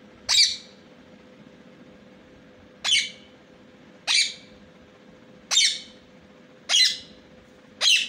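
Rose-ringed (Indian ringneck) parakeet giving six short, high-pitched squawks, one every second or two.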